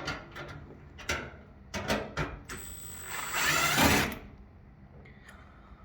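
Sheet-metal dryer vent duct being handled: a few sharp metallic knocks and clatters, then a loud scraping rasp lasting about a second, near the middle.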